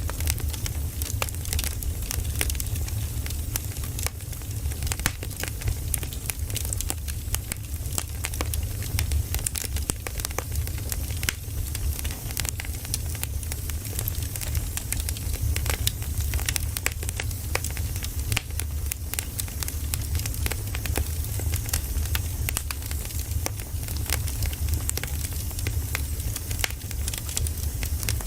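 Campfire burning and crackling, with frequent sharp pops over a steady low rumble.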